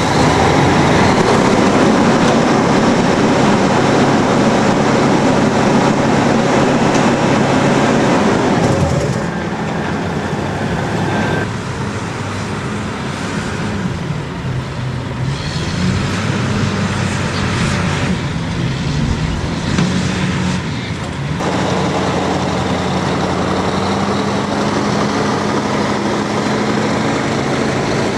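Mack logging truck's diesel engine running and driving off, loudest in the first third. Its note rises and falls several times through the middle part, then settles to a steady pull near the end.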